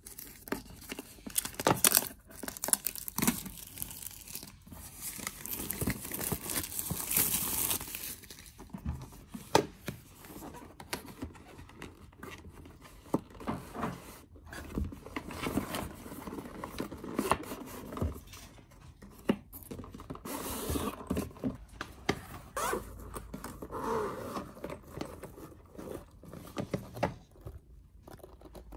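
Packaging being unwrapped by hand: plastic shrink wrap torn and crinkled off a cardboard retail box, with a long stretch of tearing and rustling a few seconds in. Then the cardboard is handled and the inner box slid out of its sleeve, with many small knocks and scrapes.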